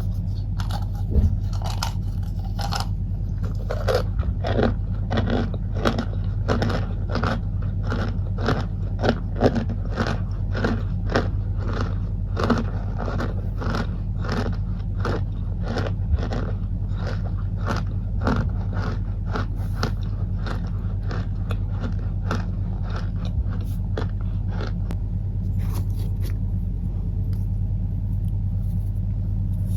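Cornstarch chunks crunching in a steady run of crisp crunches, about two a second, thinning out near the end. A steady low hum sits underneath.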